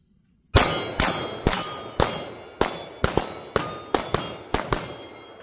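Rapid pistol fire from two shooters, about a dozen shots over four seconds, unevenly spaced and now and then two close together, each shot followed by a metallic ring.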